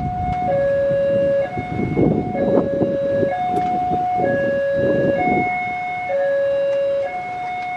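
Railway level-crossing warning alarm sounding a steady two-tone hi-lo signal, switching between a higher and a lower tone about once a second, with a low rumbling noise underneath: the crossing is warning of an approaching train.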